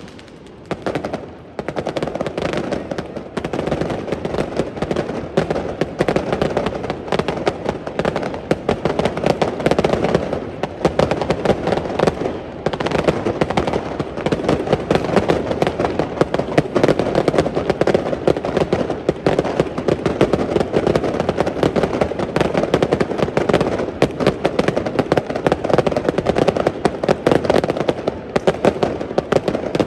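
Fireworks display: a dense, nonstop barrage of rapid bangs and crackles, beginning after a short lull at the start.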